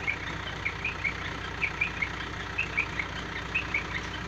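A heavy vehicle engine running steadily, with short high chirps coming a few times a second in uneven clusters over it.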